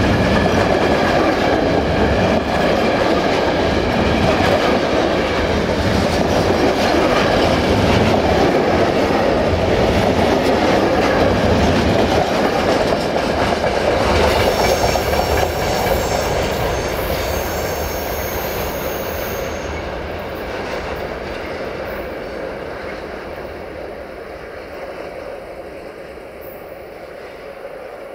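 Freight train of covered sliding-wall wagons rolling past close by, with a steady clickety-clack of wheels over the rail joints. After the last wagon passes, about halfway through, the sound fades away, and a high squeal from the wagon wheels runs for several seconds as the train rounds the curve.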